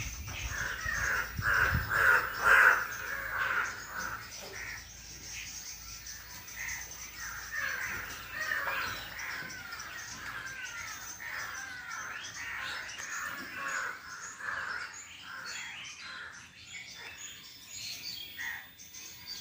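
Many birds calling and chirping at once, short calls overlapping and repeating, loudest about two seconds in.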